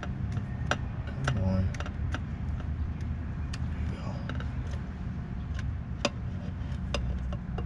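Scattered light clicks and taps of metal parts being handled as the oil filter is lifted out of its housing in the engine bay, over a steady low background rumble.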